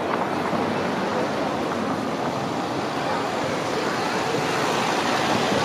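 Steady street traffic noise, an even rush of passing vehicles, growing slightly louder toward the end.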